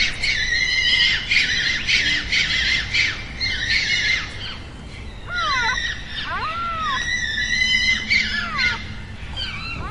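Birds squawking and chirping, many calls overlapping in a dense chatter. Louder arching calls, rising and then falling, come in about halfway through and again near the end.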